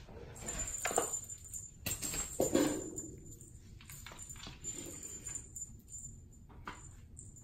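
Small bell jingling on and off as kittens bat their toys, with fabric rustling and a few light knocks, the sharpest in the first three seconds.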